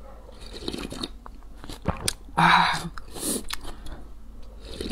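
Slurping spicy noodle broth straight from the rim of a bowl, in several short noisy sips and swallows, the loudest about halfway through.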